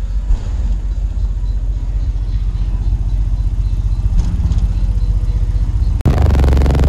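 Deep car-audio bass from sixteen 12-inch subwoofers playing at high power, a heavy low rumble with little melody above it. About six seconds in it cuts out for an instant and comes back louder.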